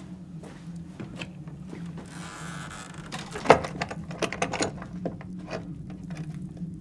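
Clicks and knocks of a wooden shed door being opened and handled, with one sharp knock about halfway followed by a quick run of smaller clicks, over a steady low hum.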